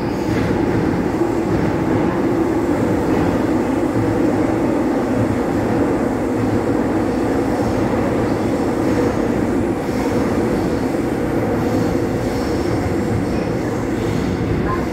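Seoul Subway Line 5 electric train running between stations, heard inside the passenger car: a steady, even rumble of wheels on the track and car body.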